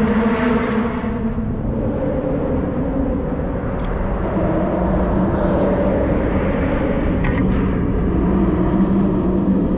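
An engine droning steadily, its pitch shifting slightly, with a few faint clicks over it.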